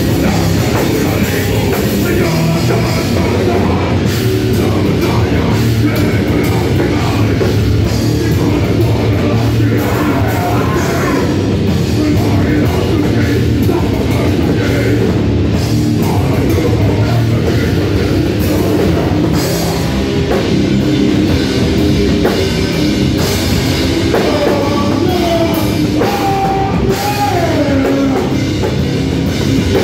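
Heavy metal band playing live and loud, with distorted guitars, a full drum kit and vocals in one continuous dense wall of sound.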